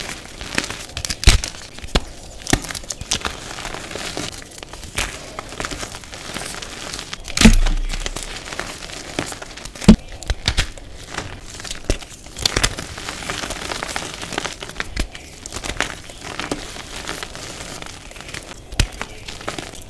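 Hands crumbling and squeezing chunks of green reformed gym chalk in loose powder: dry, crunchy crackling throughout, with sharp cracks as pieces snap. The loudest cracks come about a second in, at seven and a half seconds (with a dull thud) and at ten seconds.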